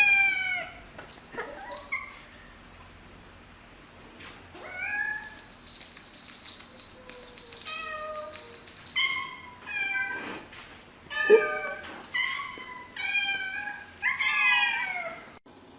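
Cats meowing: a run of a dozen or so separate meows of differing pitch, some rising and some falling, one after another. A high, thin steady tone runs under them for a couple of seconds about six seconds in.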